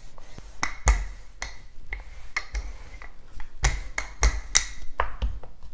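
Wooden rolling pin rolling dough out on a wooden pastry board: a run of sharp, irregular clicks and knocks, about two or three a second, as the pin rolls and bumps the board.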